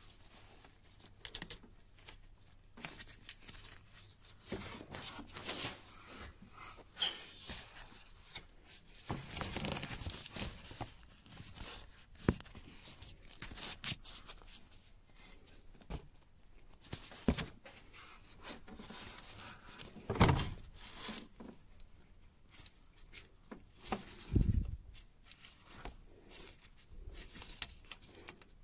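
Hands working in a car's engine bay around the intake manifold temperature sensor's connector: glove and sleeve rustling against hoses and parts, scattered small clicks, and a few sharper knocks, the loudest about two-thirds of the way through.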